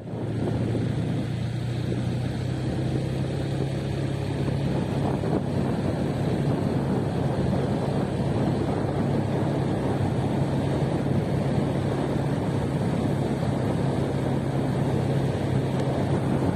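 Engine of a moving vehicle running at a steady speed: a constant low hum under a continuous rushing noise.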